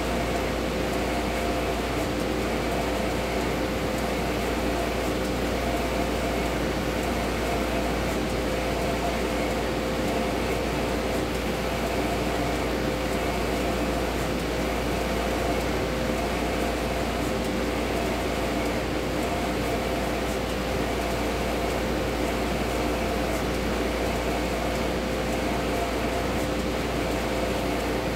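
Océ Colorado 1650 UVgel wide-format printer running mid-print: a steady mechanical hum of its fans and drives with a constant whine.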